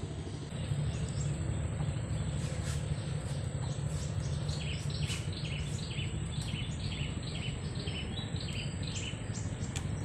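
A bird chirping over and over, short calls about two to three a second, starting about four seconds in, over a steady low rumble of outdoor background noise.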